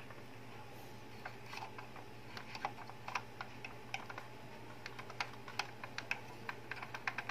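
Cotton swab scraping and tapping against the plastic parts inside an Epson L120 inkjet printer, heard as a run of small, irregular clicks starting about a second in.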